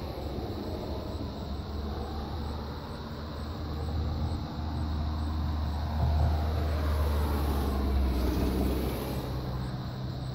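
Low engine drone of a passing vehicle, growing louder to a peak about six to nine seconds in, then fading.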